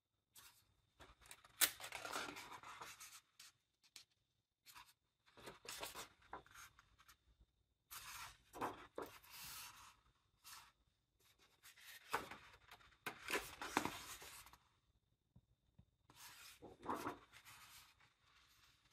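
Pages of a large hardcover illustration book being turned by hand: paper rustling and swishing in about five separate bursts, with a few crisp snaps as pages flip over.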